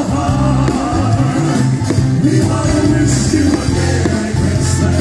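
Live band music with group singing over a steady beat and bass.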